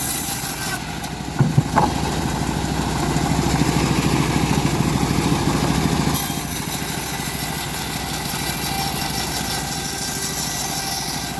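Engine of a homemade bandsaw mill running steadily, with a few sharp knocks about a second and a half in.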